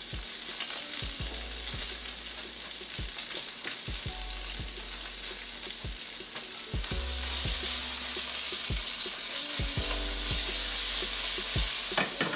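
Hot Italian sausage pan-frying in oil, a steady sizzle that grows louder about seven seconds in.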